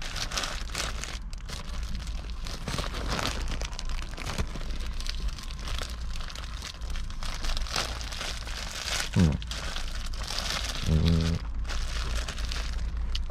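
Clear plastic bread bag crinkling and rustling in the hands as a bun is held and eaten out of it. Two short low hums from a man's voice come near the end.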